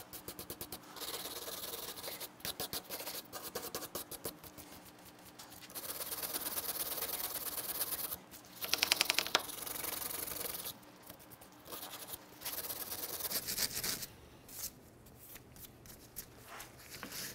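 Wire brush scrubbing dirt and light corrosion off the metal lip of a wheel hub bearing bore, in bursts of quick back-and-forth strokes with short pauses between them.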